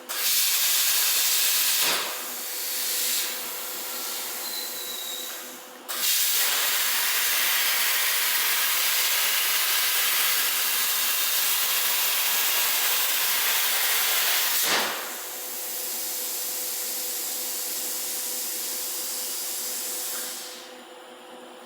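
CNC plasma torch cutting: a loud, high hiss of the arc and compressed air that starts and stops abruptly, a short cut of about two seconds, then a longer one of about nine seconds. A quieter air hiss runs between and after the cuts and stops near the end, over a steady faint hum.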